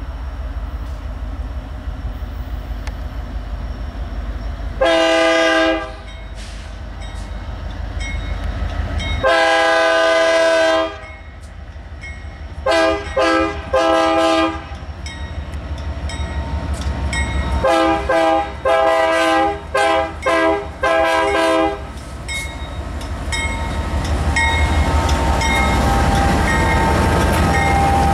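Diesel freight locomotive's air horn sounding a series of blasts: two long ones, then two groups of shorter ones, over the steady low rumble of the approaching train. Near the end the diesel engines and the clickety-clack of the wheels grow louder as the locomotives pass close by.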